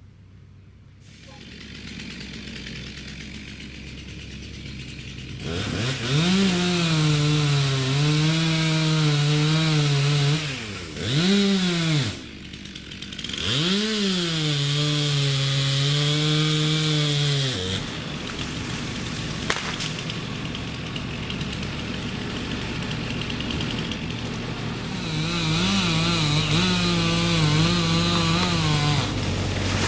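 Gasoline chainsaw revved to full throttle and held while cutting birch wood, the engine pitch wavering slightly under load. It drops back to idle for a moment about 10 seconds in, revs twice more, falls back to a lower running sound after the long cut, and opens up again near the end.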